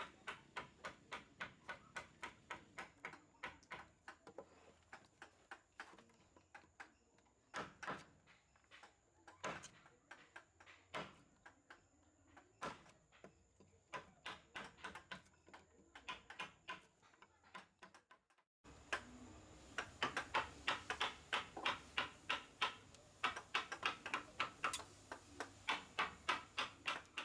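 Mallet tapping a wood chisel as it cuts into a solid block of wood, in a steady run of sharp knocks about two to three a second. After a brief gap about two-thirds of the way in, the knocks come louder and quicker.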